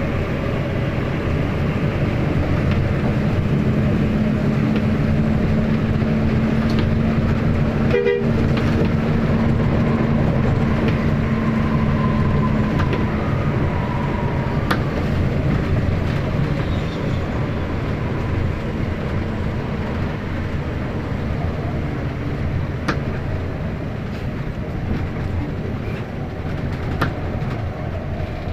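Intercity bus running on the highway, heard from inside the cabin: a steady engine and road drone, with a held tone from about three to thirteen seconds in and a few light ticks.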